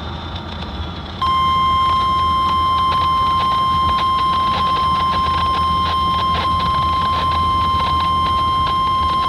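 NOAA Weather Radio 1050 Hz warning alarm tone: one steady, loud, high tone that starts about a second in and holds, over receiver hiss. The tone is the alert that a weather warning, here a tornado warning, is about to be read.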